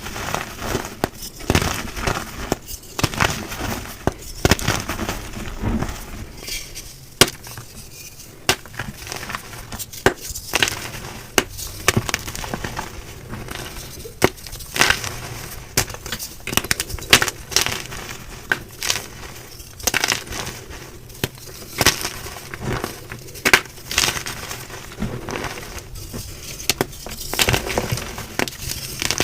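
Blocks of gym chalk being crushed: a dense, continuous run of crisp crunches and crackles, with sharper snaps now and then.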